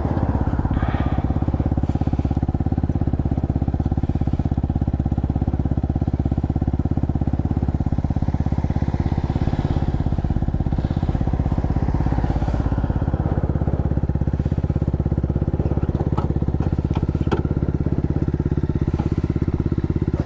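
Motorcycle engine running steadily at an even pitch, with a couple of light clicks near the end.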